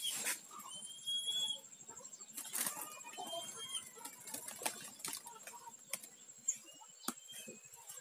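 A tame green pigeon flapping its wings as it flies onto a hand, among scattered sharp clicks and several short rising bird chirps.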